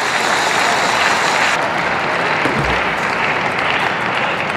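Audience applauding a won point, a steady patter of clapping hands.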